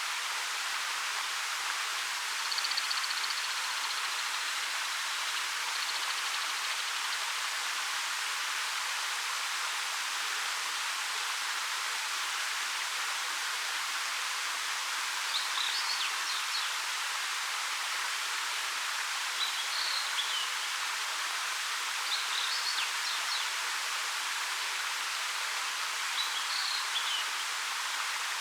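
Ariake Falls, a 13 m waterfall over dark rock, pouring steadily: an even, hissing rush of water with little low end. Birds call faintly over it, a thin drawn-out whistle near the start and four short chirps in the second half.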